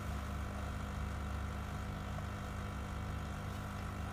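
Quick Mill Rubino E61 espresso machine's pump running with a steady hum while the shot extracts through the flow-control group head.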